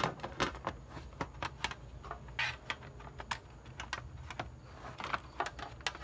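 Irregular light clicks and taps of the HP EliteBook 840 G3's bottom cover being handled against the laptop's chassis, several a second.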